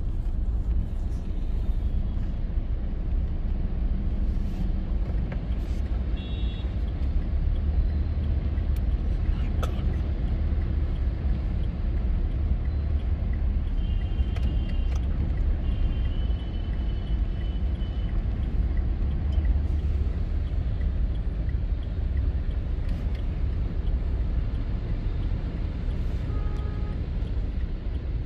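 Steady low rumble of a car being driven through a flooded street, heard from inside the cabin, with other traffic around it. Brief faint high tones come through a few times.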